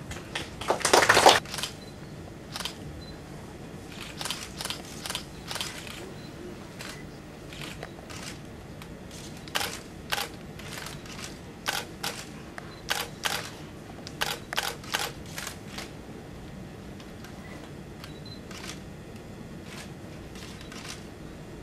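SLR camera shutters clicking, singly and in quick runs of a few frames, with a dense, louder burst of clicks about a second in.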